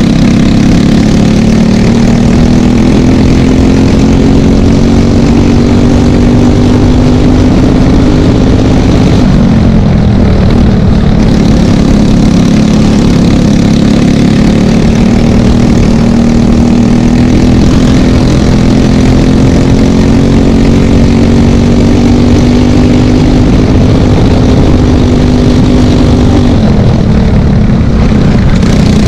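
Briggs & Stratton LO206 single-cylinder four-stroke kart engine under full throttle, its pitch climbing slowly as the kart gathers speed, then dropping as it comes off the throttle about nine seconds in and again near the end.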